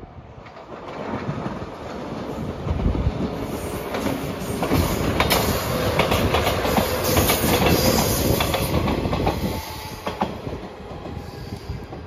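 JR 115 series electric train passing close by, its wheels clicking over rail joints. The rumble builds from about a second in, stays loud for several seconds, then drops off near the end as the train moves away.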